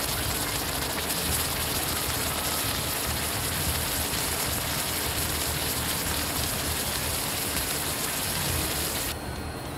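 Water boiling violently around a sun-heated 8-ounce steel block in a plastic cup, a steady spattering boil that cuts off about nine seconds in. The block's heat, stored during a three-minute exposure under a Fresnel lens, flash-boils the water.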